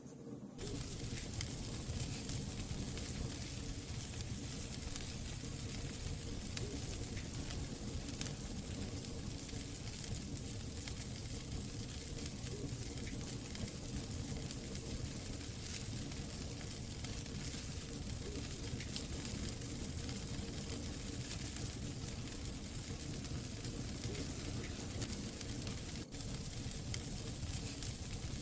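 Wood fire burning in a fireplace, crackling steadily: a dense run of small pops and snaps over a soft hiss.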